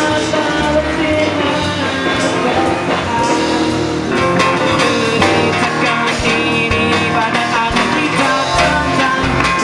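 Rock band playing live, with a singing voice over guitars and a drum kit.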